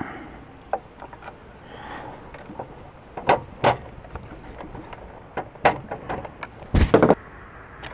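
Scattered clicks and knocks of a Ryobi miter saw's plastic handle and housing being worked by hand and screwdriver during reassembly, with a heavier double thump about seven seconds in, the loudest sound.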